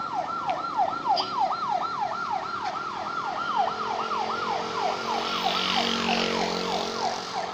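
Electronic siren in fast yelp mode, its pitch sweeping down and snapping back up about four times a second without a break.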